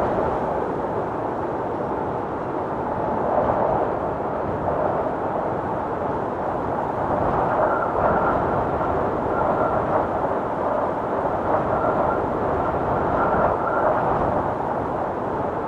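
Wind storm: strong wind rushing steadily, swelling and easing in gusts, with a faint whistling howl that comes and goes in the second half.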